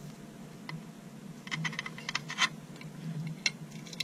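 Light clicks and taps of small pedal parts being handled by hand, with a quick run of clicks about halfway through and single clicks before and after, over a low steady hum.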